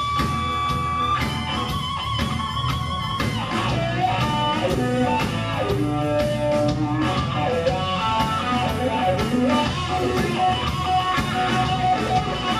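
Live blues-rock band playing: electric guitar with held and bending notes over a drum kit and bass, with no singing.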